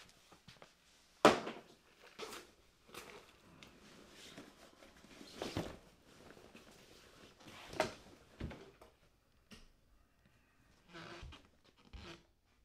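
Door and handling knocks in a small room: a string of separate knocks and clicks, the loudest a sharp knock about a second in, with faint rustling between them and a last few clicks near the end.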